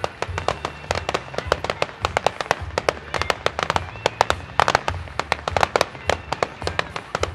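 Fireworks display going off in a rapid, irregular series of sharp bangs, several a second, with a denser cluster about four and a half seconds in.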